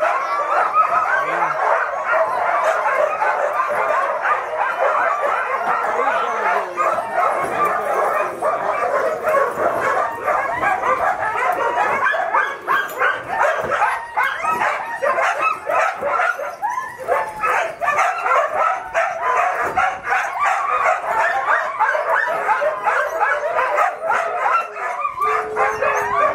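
A chorus of many harnessed sled dogs barking and yipping nonstop, the noise of a team waiting in harness to start a run.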